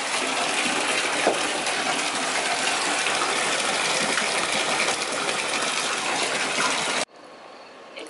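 Steady rushing, fizzing water noise in a bathtub as a pink bath bomb dissolves, cutting off suddenly about seven seconds in.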